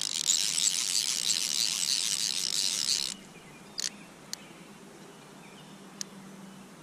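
Fly reel's click-and-pawl drag buzzing for about three seconds as a hooked trout runs and strips line off the reel. It stops suddenly, and a few separate clicks follow.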